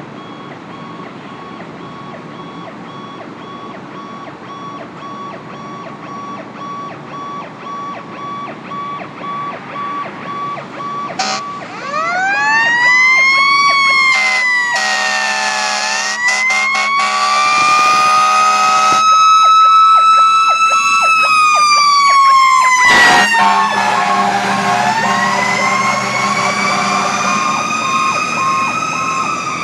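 Fire engine responding: a pulsing warning tone grows steadily louder as it approaches. About eleven seconds in, a siren winds up and wails in slow rising and falling sweeps, with horn blasts over it.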